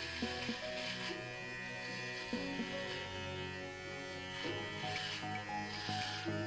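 Enchen Hummingbird cordless hair clipper running steadily as it trims beard stubble on the chin and neck, with background music.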